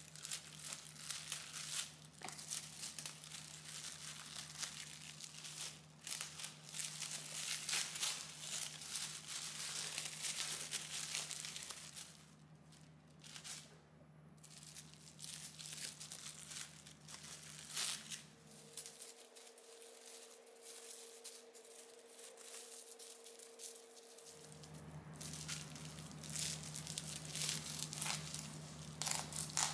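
Packaging crinkling and rustling as things are handled, with scattered small clicks, over a low steady hum that drops out for a few seconds past the middle.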